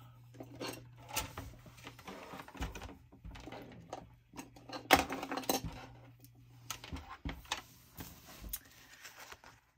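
Light, scattered clicks and taps of metal tweezers with paper rustling, as stickers are peeled from a sticker sheet and handled on a planner page.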